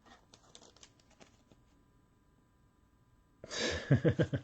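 Faint clicks and rustles of trading cards and plastic sleeves being handled. About three and a half seconds in comes a short, loud vocal sound from a man, like a sigh or an unworded utterance.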